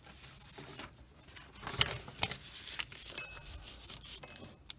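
Paper towel rustling as it is spread out over a work mat, with small hobby parts clicking and tapping as they are set down. Two sharp taps a little under two seconds in and just after two seconds are the loudest.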